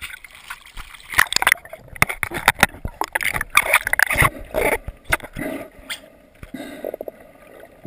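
Water splashing and gurgling against a handheld camera at the surface, in irregular splashes, turning more muffled after about five seconds as the camera goes underwater.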